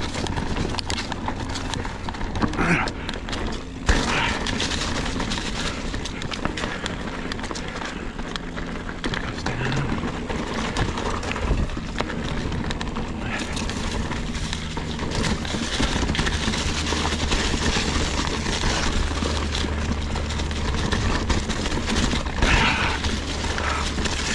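Ibis Ripmo V2 full-suspension mountain bike riding over rocky singletrack: tyres crunching and the bike rattling and clattering with many small knocks, over a steady low rumble.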